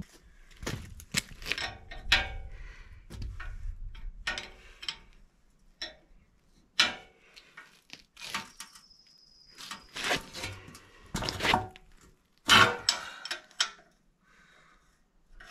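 Scattered metal clanks, clinks and knocks from handling and working on a rusty reel mower attachment, irregular and of varying loudness, with a short high squeak about eight seconds in.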